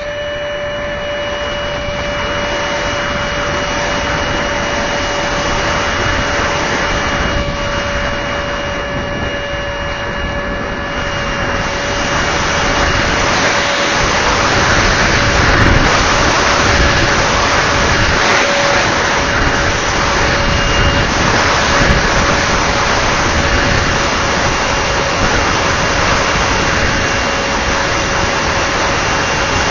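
Motor of a Multiplex Twister RC plane in flight, holding a steady whine. A rushing wind noise grows louder about twelve seconds in.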